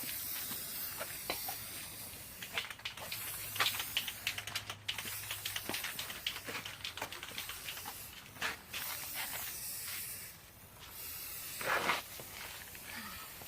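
Aerosol spray paint can hissing as paint is sprayed, in a run of bursts with short breaks, with light clicks throughout.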